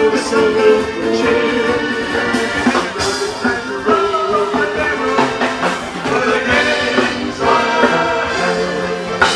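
Music with brass instruments playing a tune in held notes.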